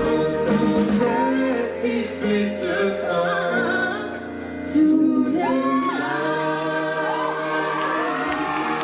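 Several voices singing together in a live pop performance, backed by a band, with long held notes. About five seconds in, one voice slides up to a high held note.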